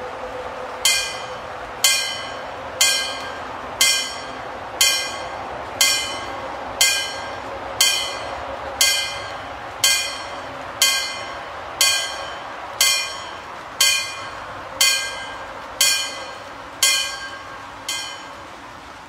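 Level-crossing warning bell striking about once a second, each stroke ringing out and dying away: about eighteen strokes, warning of an approaching train. It stops near the end, once the barrier is down.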